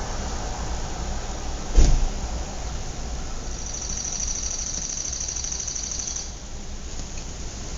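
Outdoor suburban ambience: a steady wash of distant traffic, broken about two seconds in by a single loud thump. From around the middle, a high, rapidly pulsing trill sounds for about three seconds, then stops.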